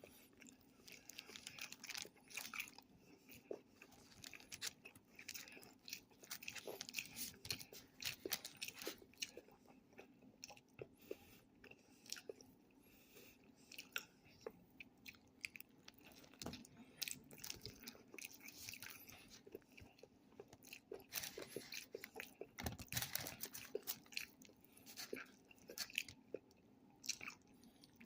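A person chewing and biting a burger close to the microphone: soft wet chewing with frequent small crunches, crackles and mouth clicks, quiet throughout.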